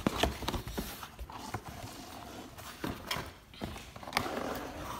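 Cardboard pizza boxes being handled and opened on a wooden table: irregular taps, knocks and scrapes of the lids and box edges.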